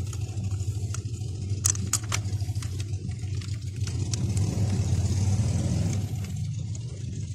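Steady low mechanical hum, like an engine running, underneath a few sharp metallic clicks from about one to two seconds in as a throttle body and its bolts are handled against the intake.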